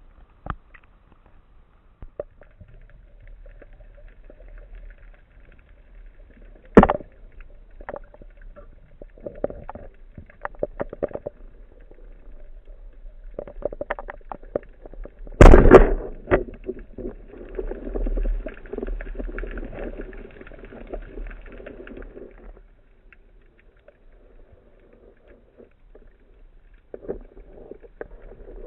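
Water and handling noise picked up by a speargun-mounted camera in its housing as the diver goes from the surface to underwater: scattered knocks and clicks, a sharp knock about seven seconds in and a louder thump about halfway, followed by several seconds of rushing water noise.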